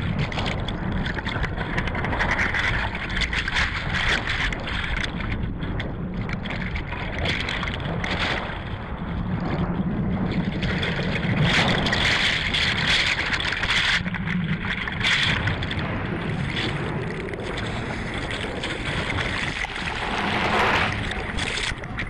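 Sea water churning and rushing in a boat's wake, heard from just at and under the surface, with the fishing trawler's engine running steadily underneath as a low hum.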